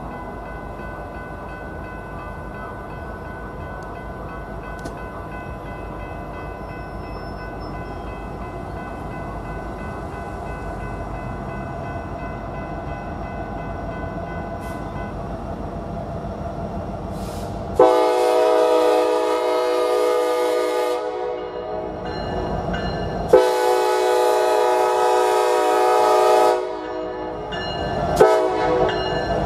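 A General Signals Type 3 electronic crossing bell rings steadily as the gates come down, then stops about halfway through. A diesel locomotive's air horn then sounds the grade-crossing signal: two long blasts, a short one near the end, and the start of a final long one.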